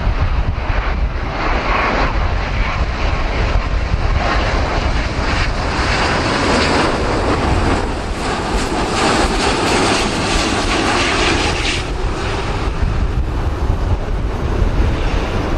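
Airbus A350's Rolls-Royce Trent XWB turbofans on final approach, passing close by. The jet noise grows, peaks and falls away sharply about twelve seconds in. Heavy wind buffets the microphone throughout, with a constant low rumble.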